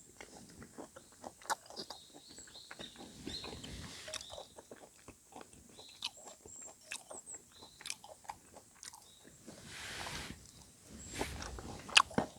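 A person chewing grilled pork close to the microphone: scattered soft wet clicks and smacks. Faint short bird chirps come through, and a soft rush of noise about ten seconds in.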